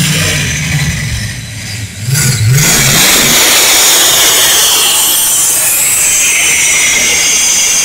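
Pulling tractor's engine running at full throttle as it drags the weight sled down the track. The sound drops back briefly, then rises in pitch about two seconds in and stays loud and steady.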